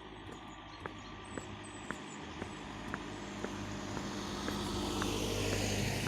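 Footsteps at a steady walking pace, about two a second, while a passing car's engine and tyre noise grows louder toward the end.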